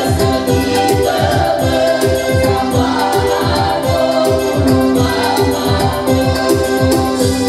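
A group of women singing together into microphones over electronic arranger-keyboard accompaniment (Technics KN7000), with held chords and a steady beat.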